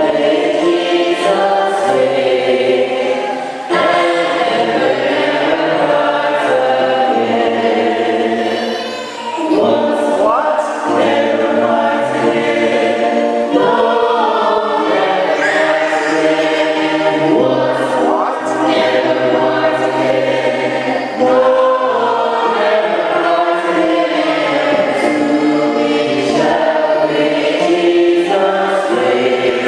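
Choir singing a gospel hymn in several voices, in sustained phrases with short breaths between them.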